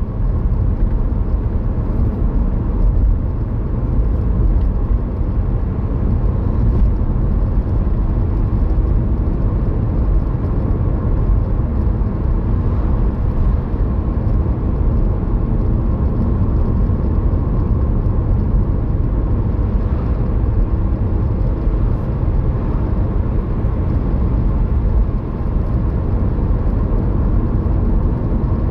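Steady road and engine rumble of a car driving along, heard from inside the cabin.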